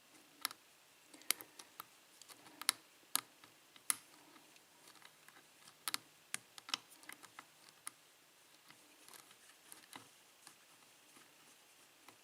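Lock pick working the pins of an Abus padlock's Schlage-keyway cylinder during single-pin picking: scattered light clicks and ticks as the pick lifts and releases the pins, with no pin setting.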